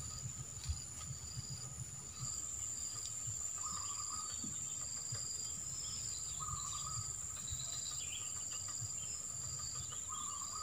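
Swamp insects such as crickets trilling: a steady high-pitched drone with a rhythmic pulsing chirp over it. A shorter, lower call repeats about every three seconds. A low rumble runs underneath.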